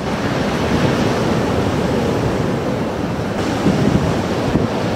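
Rough storm sea breaking heavily in continuous surf, with strong wind buffeting the microphone.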